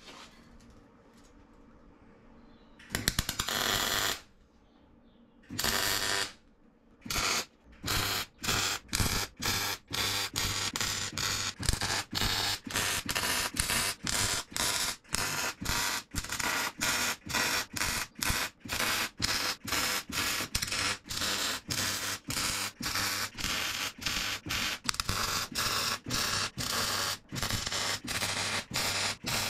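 MIG welder stitch-welding steel box section: two separate short arc bursts in the first few seconds, then an even run of short arc bursts, about two a second.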